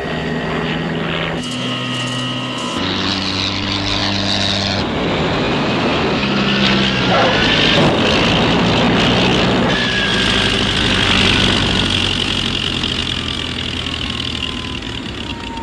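Film sound effect of an aircraft's jet engines roaring, swelling to their loudest in the middle, over low held chords of music.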